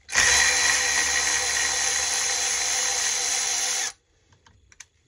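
Milwaukee cordless electric ratchet running steadily for about four seconds as it backs out an 8 mm screw, then cutting off suddenly; a few faint clicks follow.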